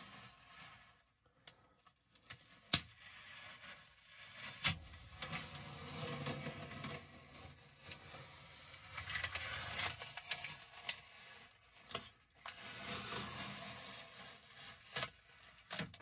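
Yellow masking tape being peeled off a metal cabinet floor along fresh seam caulk that is still soft: uneven stretches of rubbing, tearing noise with a few sharp clicks.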